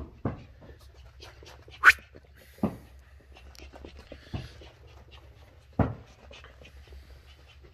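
Shetland sheepdog puppy panting while it scampers about on carpet, with a few dull thumps and one sharper knock about two seconds in.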